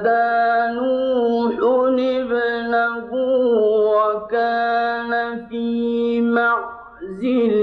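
Male qari's voice in melodic mujawwad Quran recitation, holding long drawn-out notes with slow ornamented turns of pitch. A short breath about seven seconds in, then a new phrase begins with a rising glide.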